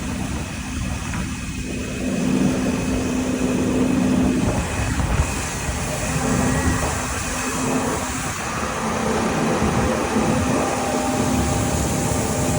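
Diesel-powered harvest machinery running steadily, a constant engine hum over a broad mechanical rumble that grows louder about two seconds in.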